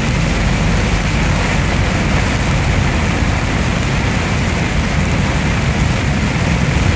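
Scania R440 truck's diesel engine running steadily, heard from inside the cab, under a constant hiss of heavy rain and tyres on the wet road.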